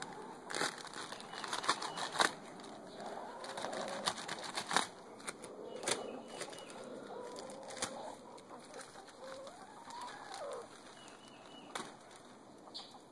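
Crinkling and crackling of a plastic bag of cedar shavings being torn open, sharpest in the first five seconds. Backyard hens make soft, drawn-out calls, one rising and falling near the end.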